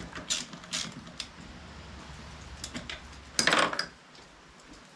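Metal hand tools and parts clinking during the teardown: a few short clicks in the first second or so, then a louder clatter of metal about three and a half seconds in.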